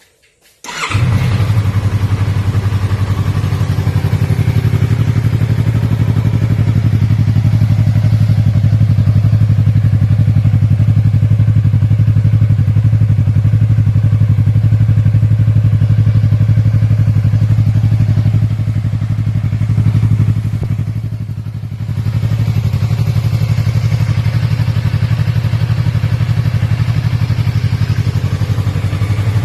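Yamaha R3's parallel-twin engine, breathing through an Akrapovic M1 exhaust, starting up about a second in and then idling steadily. It goes briefly quieter about 21 seconds in.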